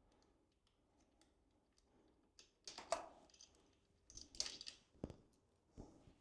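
Quiet handling noises of skid plate hardware being worked by hand: scattered clicks and scrapes, with a louder clatter about three seconds in, another around four and a half seconds, and a sharp click near five seconds.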